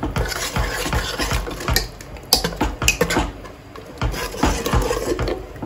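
Steel ladle stirring thick mutton curry in a pressure cooker pot, scraping and clinking irregularly against the metal sides.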